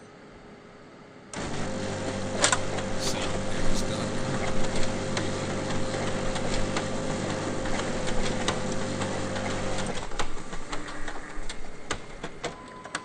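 Photocopier making a copy: its motor starts suddenly about a second in and runs steadily with a hum and rapid clicking and clatter of the paper feed, then stops about ten seconds in, followed by a few scattered clicks and a short beep-like tone near the end.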